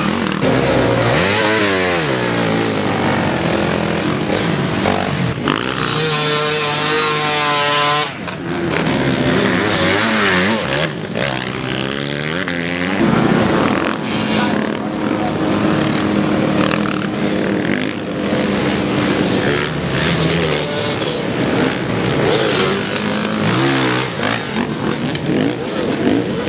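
Off-road motorcycle engines revving as several bikes ride past on a muddy beach track, the engine pitch rising and falling again and again. The loudest is one bike accelerating hard about six to eight seconds in.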